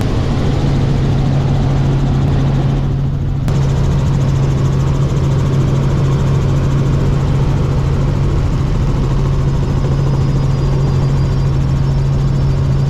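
Helicopter cabin noise in flight: a steady low hum over a loud rushing noise. The higher part of the noise drops briefly about three seconds in, then comes back at an abrupt cut.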